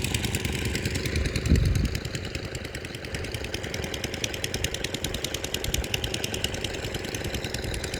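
An engine running steadily with a rapid, even beat, with one louder low thump about one and a half seconds in.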